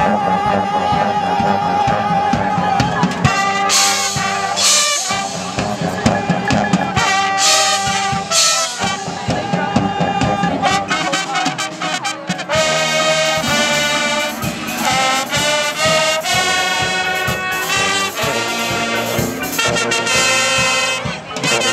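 High school marching band playing live: trumpets, mellophones, trombones, saxophones and sousaphones sounding loud chords that move from note to note, with a few sharp accents.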